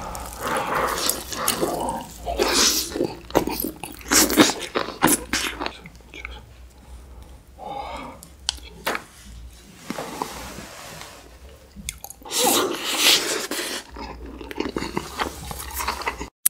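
Close-miked mukbang eating sounds: biting and tearing meat off a galbitang beef short rib and chewing with wet mouth noises. They come as a string of separate bites and chews with short quieter gaps.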